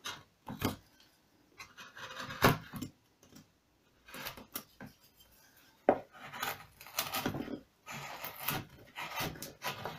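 Hand-pushed carving chisel cutting into limewood: short scraping cuts in an irregular rhythm, with a few sharp clicks among them.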